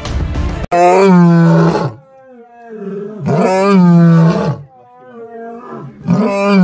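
Male lion roaring: three long, loud calls a little under three seconds apart, each bending up and then down in pitch, with shorter grunts between them.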